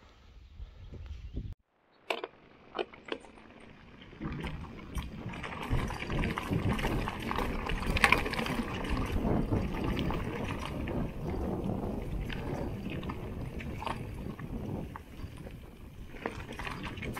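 Bicycle rolling down a gravel trail: tyres crunching over loose stones, with scattered clicks and knocks. The noise builds from about four seconds in as speed picks up.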